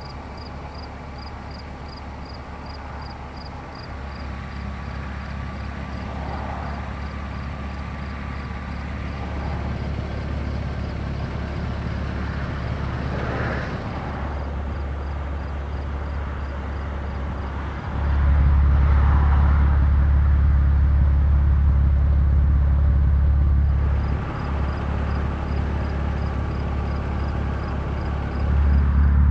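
1997 BMW E36 M3's straight-six engine idling with a steady low exhaust burble. It gets clearly louder about 18 seconds in, drops back a few seconds later, and rises again near the end.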